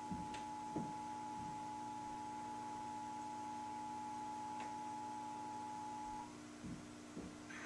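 Emergency Alert System attention signal: the steady two-tone alert sounding from a television, cutting off about six seconds in, over a low steady hum.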